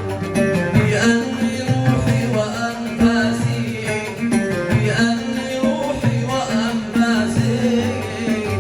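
Yemeni song in an instrumental passage between sung verses: plucked string instruments playing the melody over a steady percussion beat.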